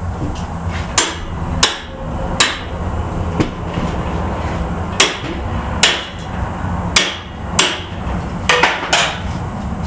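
About ten sharp metal clanks, unevenly spaced, as a bench vise holding a steel suspension A-arm is worked and tightened by hand, its handle knocking metal on metal.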